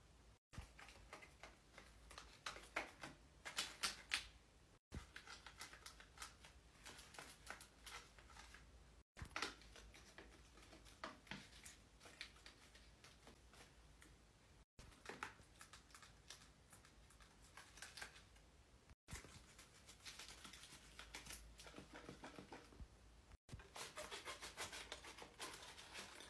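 Quiet crinkling, rustling and light clicking of a folded paper dragon puppet handled close to a microphone. The sound breaks off for a moment about every four to five seconds.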